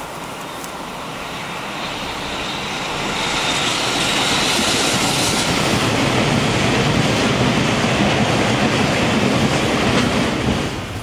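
Freight train of an EF65 electric locomotive and eight Taki 1000 tank cars passing close by, its wheels running on the rails. The sound builds over the first few seconds, stays loud while the tank cars go by, and falls away near the end as the last car passes.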